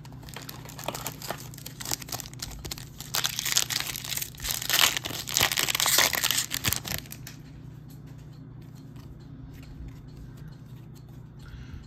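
Foil wrapper of a Donruss Optic football retail card pack being torn open and crinkled, with many sharp crackles, loudest from about three to seven seconds in. After that, only faint handling of the cards.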